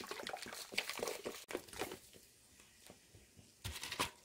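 Lemon-lime soda pouring from a plastic bottle into a stainless steel bowl of brine, fizzing with a dense crackle. The pour and crackle die down about two seconds in, leaving a faint fizz, with two short clicks near the end.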